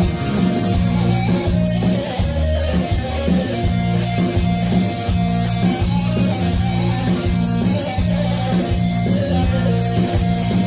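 Instrumental band music: an amplified plucked string instrument playing a melody over sustained drone notes and a steady drum beat.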